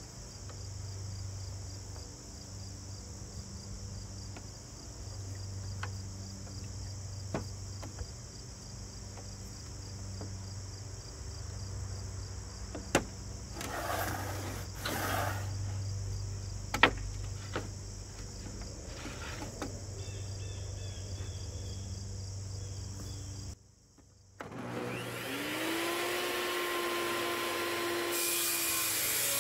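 Crickets chirring steadily, with a few sharp clicks and knocks as a miter gauge is set to 45 degrees and a board is lined up against it. Near the end a table saw motor starts, its whine rising and levelling off, and keeps running.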